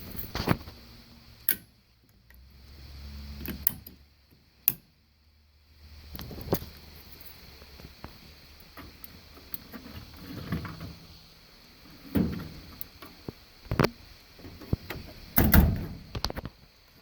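Scattered knocks, clicks and clunks from parts and panels of a stackable washer-dryer being handled during a drum wheel repair. The loudest clunks come close together near the end.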